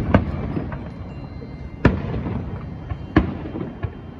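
Aerial firework shells bursting: three loud booms about a second and a half apart, each trailing off in a rolling echo, then a smaller bang near the end.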